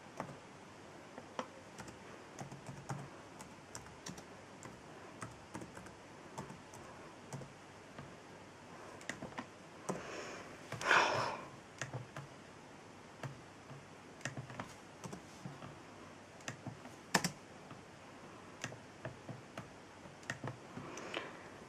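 Irregular keystrokes typed on a computer keyboard: scattered soft clicks with pauses between them. A short louder burst of noise comes about halfway through.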